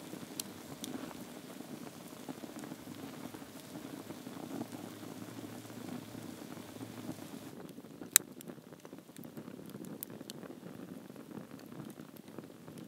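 Wood campfire crackling and hissing, with scattered small pops and one sharp, loud pop about eight seconds in.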